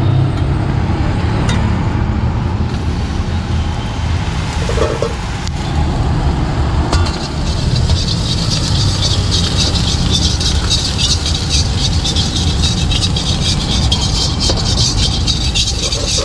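Gas burner under a large iron wok, burning with a steady low rumble. About seven seconds in, a loud sizzle starts as onions and vegetables fry in the hot oil, with a metal spatula clinking and scraping against the wok.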